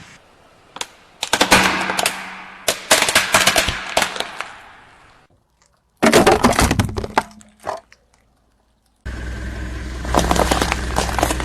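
Plastic toy car cracking and breaking under a car's tyre, in several bursts of rapid snapping cracks. About nine seconds in, the car's steady low rumble comes in with more cracking over it.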